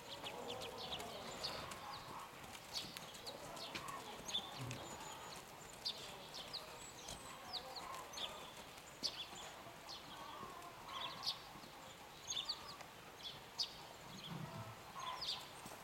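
A ridden horse walking on an arena's sand: soft hoofbeats and tack, with sharp clicks coming irregularly.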